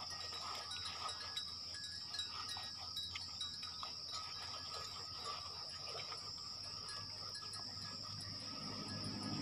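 A steady high-pitched insect drone, with faint, irregular small splashes and drips of water as wet skin is rubbed.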